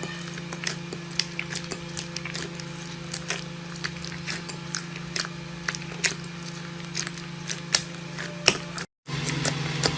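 Slime being squeezed and pressed by hand, giving off irregular sharp pops and crackles over a steady low hum. It cuts out briefly about nine seconds in, then the crackling resumes.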